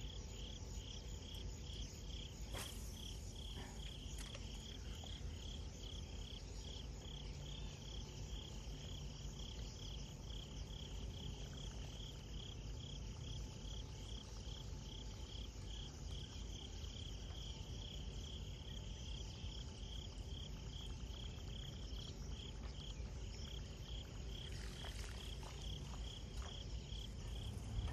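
A cricket chirping steadily: an even, unbroken run of short high chirps over a low background hum.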